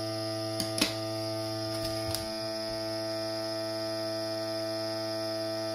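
Slaouwo vacuum sealer's pump running with a steady hum as it draws the air out of a bag, pulling down slowly, which the owner puts down to the bag being cut a bit too short. A couple of light clicks from the bag being handled about one and two seconds in.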